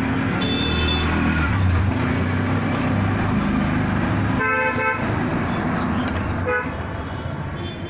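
Passing road traffic: a motor vehicle's low engine rumble that drops away about four and a half seconds in, as a horn honks for about half a second. A shorter honk follows about two seconds later.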